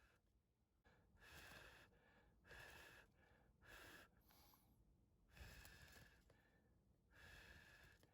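Origami colour paper rustling and sliding as it is handled and creased, in about six quiet swishes spaced roughly a second apart.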